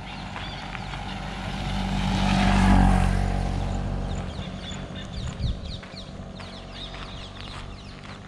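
Auto-rickshaw engine coming closer and passing by: it grows louder, is loudest about three seconds in, then fades away. Birds chirp in the background.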